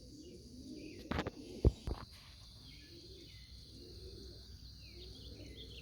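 Domestic pigeons cooing faintly in a loft, low arching coos repeated throughout, with three short knocks between one and two seconds in.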